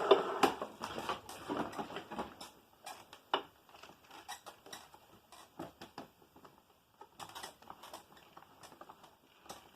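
Upright vacuum cleaner's motor dying away in the first second, followed by scattered light clicks, taps and knocks as the machine is handled and looked over.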